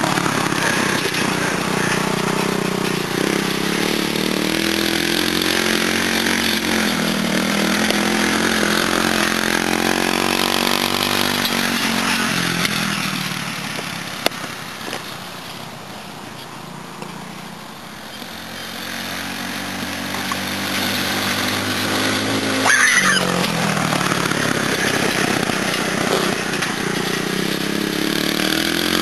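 Go-kart's 10 hp engine running, loud as the kart passes close, fading to its quietest about halfway through as it drives off, then growing louder again as it comes back, with a quick swing in pitch a few seconds before the end.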